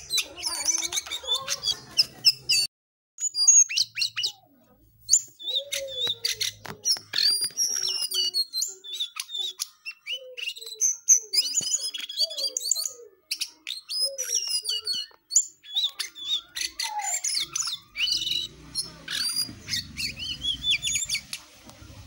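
Caged jongkangan songbird singing a long, varied run of quick chirps and whistled phrases, some notes sliding up and down. There are short breaks, one about three seconds in. A low rumble joins near the end.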